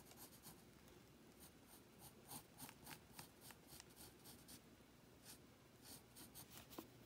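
Pencil sketching on paper: a run of short, faint strokes scratching across the sheet.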